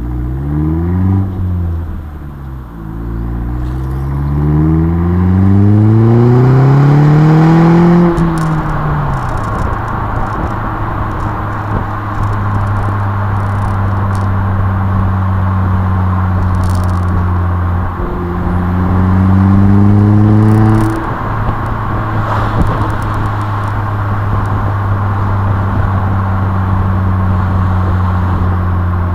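Opel Astra J GTC's 1.4 turbo four-cylinder through an aftermarket sport exhaust (76 mm downpipe, 200-cell cat, 70 mm system), heard at the tail of the car under way. Revs climb, dip, then climb for about five seconds before falling off. The engine then drones steadily at cruise, with one short rise in revs just before the twenty-second mark that cuts off sharply, over road and wind noise.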